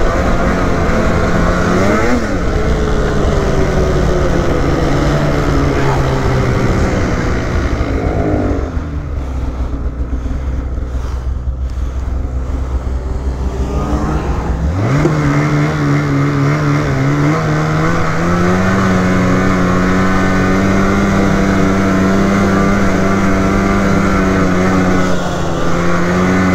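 Polaris Matryx Assault 146 snowmobile's 850 Patriot two-stroke engine running on the trail, its pitch rising and falling with the throttle. About a third of the way in it drops to a low idle for about six seconds, then revs sharply back up and holds a steady cruising pitch.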